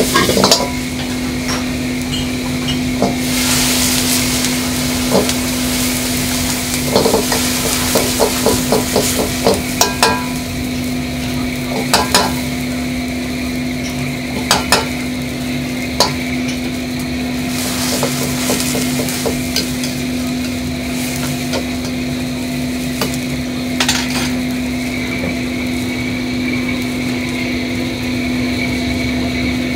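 A metal ladle stirring bean sprouts and cabbage in a wok over a gas flame, clanking and scraping on the wok, with steady frying sizzle and a steady hum underneath. A quick run of ladle knocks comes about a third of the way in, then single clanks now and then.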